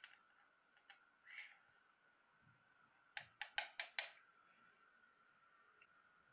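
Black peppercorns shaken from a glass jar into a brass mortar, landing with about five sharp clicks within a second, about halfway through.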